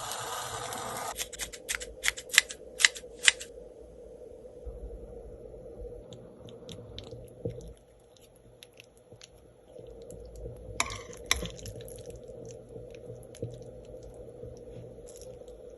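A handful of sharp clinks in the first few seconds, then scattered light clicks of utensils and dishes being handled while cooking or eating instant noodles, over a steady low hum.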